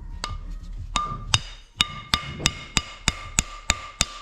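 A steel flywheel starter ring gear struck again and again with a hammer, about eleven sharp metallic strikes that each ring, quickening to about three a second. The taps are splitting the old ring gear at a drilled hole so it can come off the flywheel.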